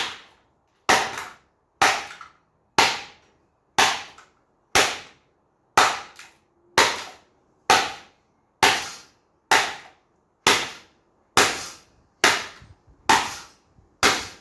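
A plastic Hoover desk fan being struck over and over, about sixteen hard blows at roughly one a second, each a sharp crack with a short ring. The part holds up against the blows rather than shattering.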